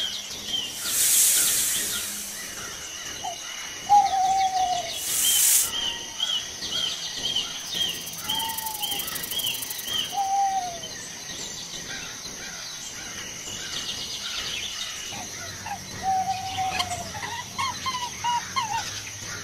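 Forest ambience of birds calling: a clear falling whistled note repeated every few seconds over quick, high repeated chirps and a steady high-pitched whine. Two short bursts of hiss stand out, about a second in and again about five seconds in.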